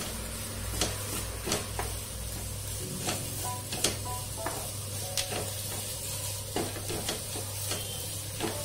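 A spatula scrapes and knocks against a black kadai with irregular clicks, stirring a thick chilli mixture frying in oil, over a light sizzle.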